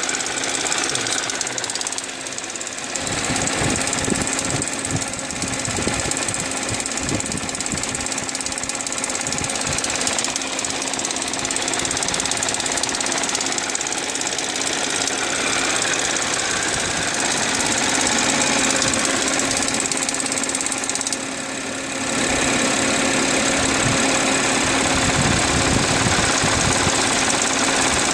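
Audi A6 C6 3.0 TFSI supercharged V6 running on a cold start, with an extraneous rattling noise from the left rear of the engine that swells and fades in waves. The noise occurs only while the engine is cold.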